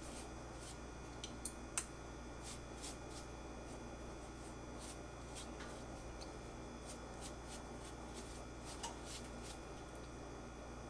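Faint scattered light clicks and rustles of a pastry brush spreading beaten egg white over a pie's top crust, over a steady low room hum.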